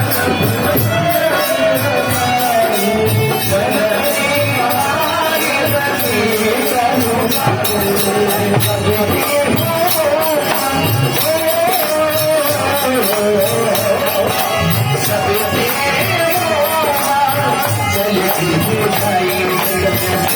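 Devotional Hindi song music: a wavering melody line carried over steady hand percussion with jingles like a tambourine's.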